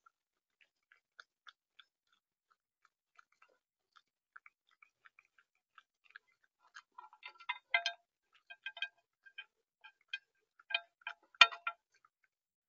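Raccoon eating from a bird feeder's tray right at the feeder camera's microphone: crisp chewing and crunching clicks, sparse at first, then denser and louder after about seven seconds, with the sharpest crunch near the end.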